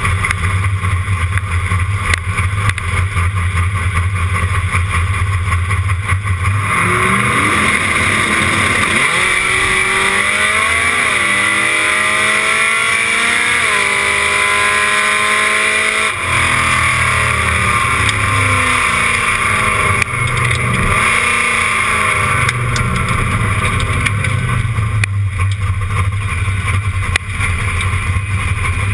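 1966 Dodge Dart's engine, likely its slant six, idling loud and low, then launching hard about seven seconds in. The revs climb in steps with two drops, the car spinning its tyres hard on a poor track, with heavy wind noise on the microphone. The driver lifts off about sixteen seconds in and the revs fall away back toward a low rumble.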